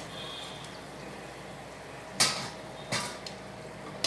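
Steel slotted ladle and tongs clanking against a steel kadai and plate as fried vadai are lifted out of the oil and set down: two sharp metal knocks, about two seconds in and a second later, and a lighter tap near the end.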